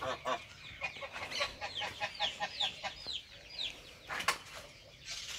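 Backyard chickens clucking in quick runs of short notes, with a string of high falling peeps. A single sharp click comes about four seconds in.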